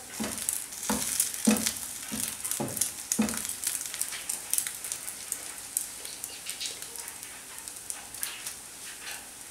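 Egg-coated bread slice with potato stuffing shallow-frying in oil in a nonstick pan: a steady sizzle full of fine crackles. About six short knocks of a spatula against the pan come in the first three seconds or so.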